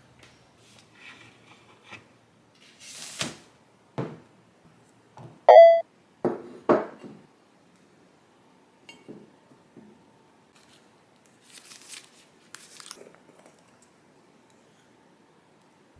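Kitchen handling sounds: a cabinet door, a ceramic dish and a jar being picked up and set down, as a few separate knocks and rustles. About five and a half seconds in comes the loudest sound, a short ringing beep-like tone, followed by two knocks.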